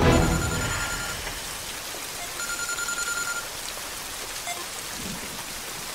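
Mobile phone giving two electronic tones of about a second each, a little over a second apart, over a steady rain-like hiss.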